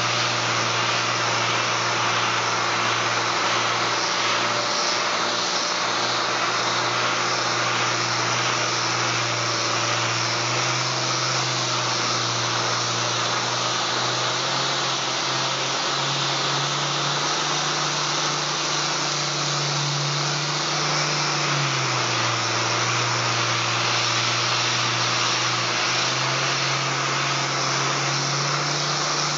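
A 6-inch random orbital air sander runs continuously, sanding a solid surface countertop: a steady hiss with a low hum that shifts up and down in pitch a few times.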